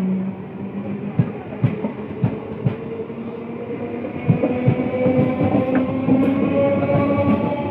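Electric multiple-unit (EMU) local train running past, its wheels clacking over rail joints, with a whine that rises slowly in pitch.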